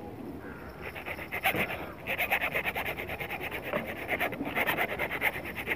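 Hand-held hacksaw blade sawing through the steel wire armour of an armoured power cable, a rasping scrape in quick back-and-forth strokes. It starts about a second in and gets louder after two seconds.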